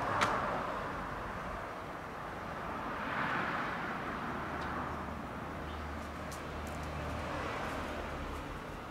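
Outdoor background noise of traffic: a vehicle passes, swelling about three seconds in, over a low engine hum. A sharp click near the start and a few faint ticks later are steps of plastic slide sandals on asphalt.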